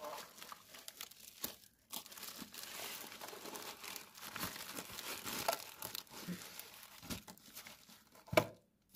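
Bubble wrap and plastic packaging bags crinkling and rustling as they are handled and pulled aside, with one sharp knock near the end.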